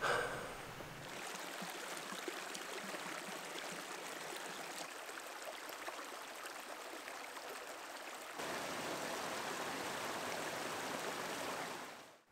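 Small rocky mountain creek running over stones, a steady rush of water that gets a little louder about eight seconds in and fades out near the end.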